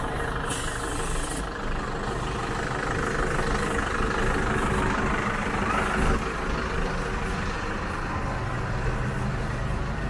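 A large vehicle's engine idling steadily amid city street noise, with a short hiss about half a second in.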